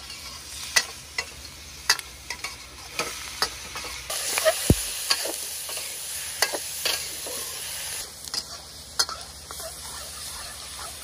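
Green peppers and meat stir-frying in a wok on a portable gas stove: hot oil sizzling while a metal spatula scrapes and knocks against the wok, louder from about four seconds in.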